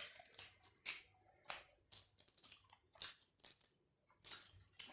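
A person chewing food close to the microphone: a faint, irregular string of short mouth and eating noises with quiet gaps between them.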